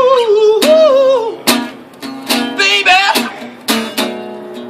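Acoustic guitar strummed slowly, about one strum every second. A man's sung note slides down and fades over the first second or so.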